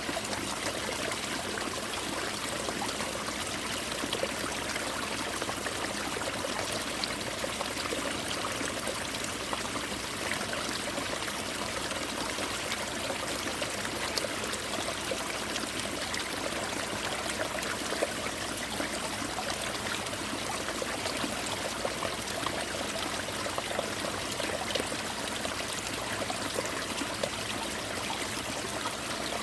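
Winter mountain stream water pouring onto ice-covered rocks: a steady, even splashing and trickling like rain, with small drips and splashes throughout.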